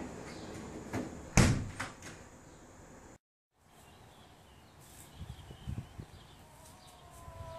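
A door banging shut: one sharp, loud bang about a second and a half in, with a few lighter knocks around it.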